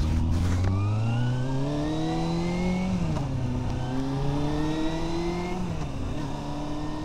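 Kawasaki Balius 250cc inline-four motorcycle engine accelerating, its revs climbing and then dropping sharply twice as it shifts up, about three seconds in and again near six seconds. A steady rush of road and wind noise lies underneath.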